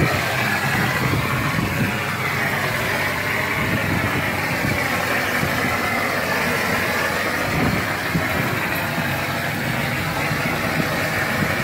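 Plaster-spraying machine running steadily, a continuous mechanical noise as it pumps and sprays plaster.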